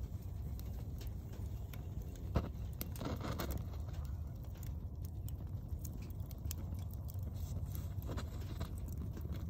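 Wood fire burning in a wood stove, crackling with scattered sharp pops over a steady low rumble. The loudest pop comes about two and a half seconds in, followed by a quick run of crackles.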